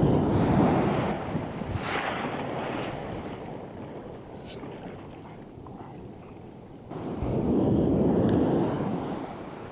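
Wind buffeting the microphone over the wash of ocean surf on the beach. The rumble swells loud twice: right at the start and again about seven seconds in, easing in between.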